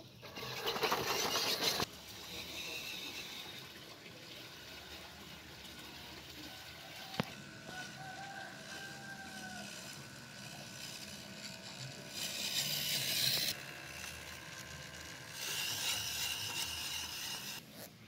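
MN99S remote-control 4x4 crawler's electric motor and gearbox whining in three bursts as it drives: at the start, about twelve seconds in, and again about fifteen seconds in. A single sharp click comes about seven seconds in.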